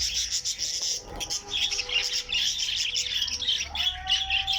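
Many small caged birds chirping and twittering together, a dense, continuous high chatter. A long steady whistling note joins in near the end.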